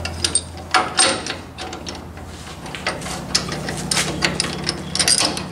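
Metal knocks, clinks and scrapes as a differential carrier with its ring gear is worked into a Chrysler 9.25 rear axle housing by hand. Two sharp knocks come about three quarters of a second and one second in, then a run of lighter clicks and taps, over a steady low hum.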